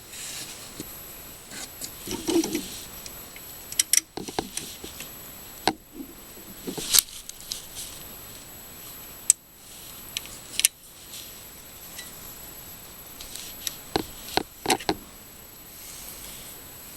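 Irregular small metallic clicks and clinks of hand tools fitting a hose clamp back onto a snowblower's fuel line at the new carburetor. The sharpest clicks come about four, six, seven, nine and eleven seconds in, with a cluster near fifteen seconds.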